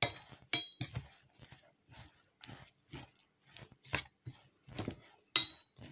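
Spoon stirring shredded vegetables in mayonnaise in a bowl: soft wet squishing strokes about twice a second, with a few light clinks of the spoon against the bowl, one at the start, one half a second in and one near the end.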